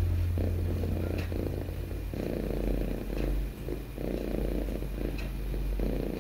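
Domestic cat purring while being stroked, the purr swelling and easing in cycles of a second or so with each breath.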